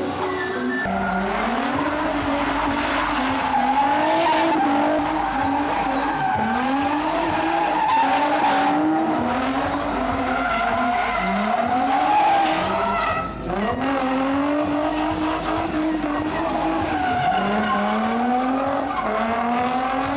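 Car engine at high revs, its pitch sweeping up and falling back every second or two, with tyres squealing and skidding under it, as a car drifts. There is a brief break in the sound about two-thirds of the way through.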